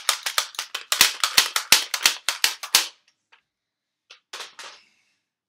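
Yellow Nerf blaster being worked and fired in quick succession: a fast run of sharp plastic snaps and clacks for about three seconds, then it stops. A short, softer noise follows about four seconds in.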